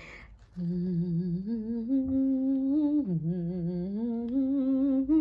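A woman humming a slow tune with her lips closed. It starts about half a second in, with held, wavering notes that step up and down and a short dip in pitch about three seconds in.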